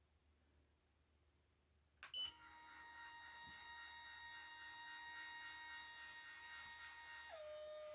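Electronic powder dispenser starting with a click and beep about two seconds in, then its motor whining steadily as it throws a rifle powder charge. Near the end the whine drops to a lower pitch as the motor slows to trickle the last grains up to the set weight.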